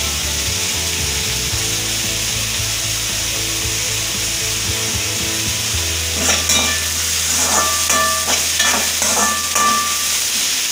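Chopped onions sizzling in oil in an aluminium kadai, sautéing until soft. From about six seconds in, a spatula scrapes and knocks against the pan as they are stirred.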